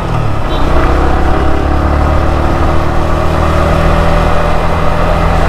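A vehicle engine running steadily, its pitch holding roughly level.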